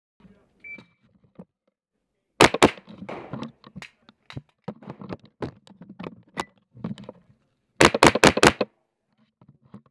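Rifle firing at an indoor range: two quick shots about two and a half seconds in, then a fast string of about five shots near the end, with lighter clicks and knocks in between.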